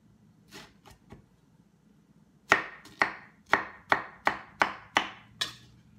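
Kitchen knife cutting a strip of pineapple core on a wooden cutting board: a few soft cuts, then from about halfway about eight sharp knocks of the blade hitting the board, a little under three a second, the first the loudest.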